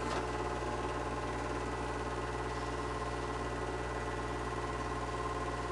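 Super 8 film projector running at a steady speed: an even mechanical drone from its motor and shutter mechanism, with a fast fluttering clatter.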